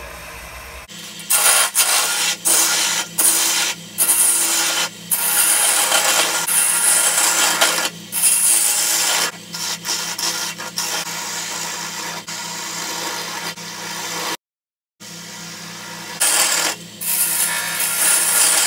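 Wood lathe running with a steady hum while a turning tool cuts the spinning chokecherry, shaping a goblet's stem and foot: loud scraping, hissing cuts that start and stop again and again as shavings come off. The sound drops out briefly about three-quarters of the way through.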